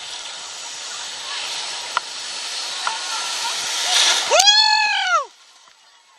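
Big sea waves breaking and rushing, a steady roar of surf that swells toward the end. About four seconds in comes a single loud high cry that rises then falls, and then the sound cuts off abruptly.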